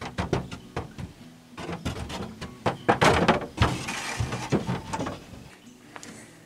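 A run of knocks and thuds with rustling close to the microphone as clothing brushes past it, loudest and noisiest a few seconds in, then settling down near the end.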